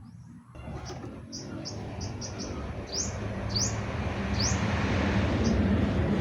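Small birds chirping in short rising notes, about ten of them. Under them a steady hiss with a low hum starts about half a second in and grows louder.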